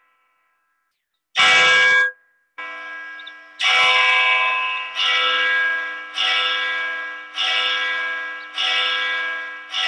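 Church bell rung by hand, its clapper pulled by a chain. A short burst of bell sound cuts off abruptly early on. Then from about three and a half seconds in, the bell strikes steadily, roughly once every 1.2 seconds, each stroke ringing on into the next over a low hum.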